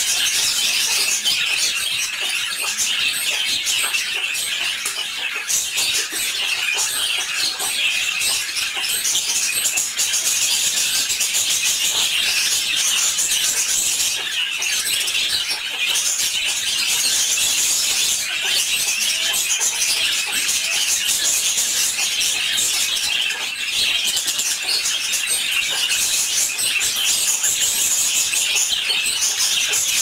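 Budgerigars chattering and warbling continuously: a dense, unbroken stream of fast chirps and squeaky notes.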